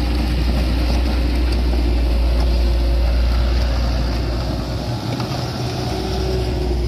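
Heavy vehicle's diesel engine running with a steady low rumble, easing slightly about five seconds in.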